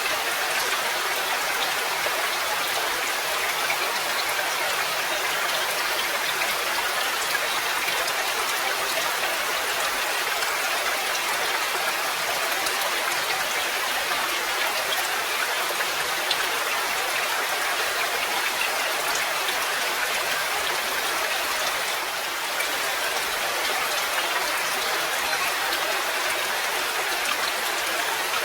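Steady rain: an even, dense patter of drops with occasional sharper individual drop ticks.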